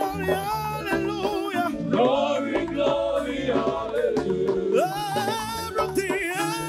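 Gospel praise and worship singing with band accompaniment and a steady beat.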